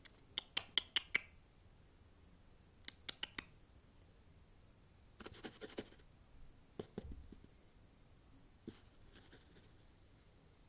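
Runs of sharp clicks, about six in a quick burst at the start and four more near three seconds in, then a short scratchy rustle and a few knocks: a small animal moving and scrabbling about close by.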